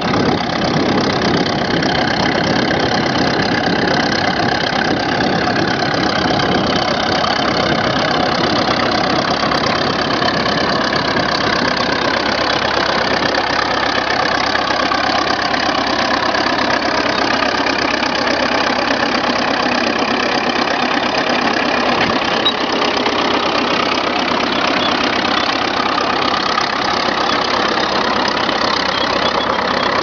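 Vintage crawler tractor's engine running steadily under load as it pulls a plough.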